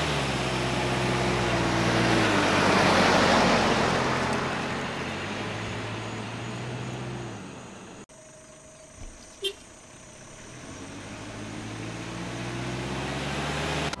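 An SUV driving past on an asphalt road: its engine and tyre noise swell over the first three seconds, the engine note drops as it passes, and it fades away. Then quieter road noise from inside a moving car, with a short horn toot about halfway through and an engine note rising again near the end.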